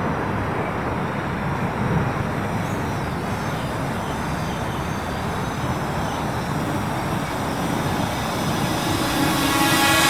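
Steady rushing noise, then a Parrot Anafi quadcopter's propellers humming louder as the drone flies in close overhead near the end.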